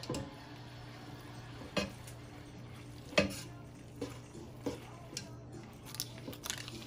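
A spatula stirring cooked elbow macaroni and butter in a metal pot: soft stirring with a few sharp knocks of the spatula against the pot, the loudest about three seconds in.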